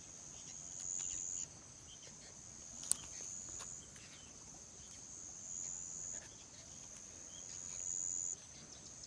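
Insects chorusing with a steady high-pitched buzzing trill that swells louder for a second or so three times, with one sharp click about three seconds in.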